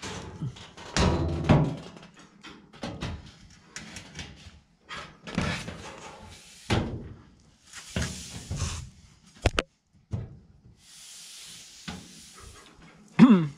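Galvanized sheet-metal duct pieces being handled and fitted together: a run of irregular clanks, knocks and rattles, with two longer scraping stretches of metal sliding on metal and a sharp double click about two-thirds of the way through.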